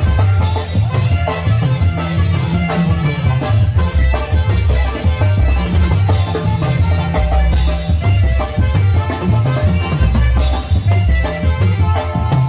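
A live tamborazo band playing a cumbia, with saxophone melody over a steady drum-kit and bass-drum beat.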